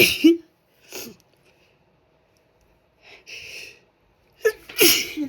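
A person sneezing, the sneezes brought on deliberately by sniffing an irritant: one sneeze at the start and a short one about a second in. A sharp in-breath follows about three seconds in, then a louder sneeze near the end.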